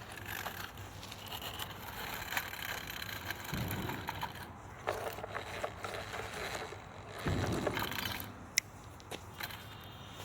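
Toy RC car driving over rough ground, its small wheels scraping and crunching over dirt and grit, with a sharp click near the end.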